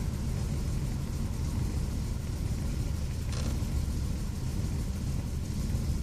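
1993 Toyota Camry V6 engine running as the car is driven, a steady low rumble; the engine is misfiring, which a mechanic traced to a dead fuel injector on cylinder 3, dirty injectors on the other five and bad spark plug wires.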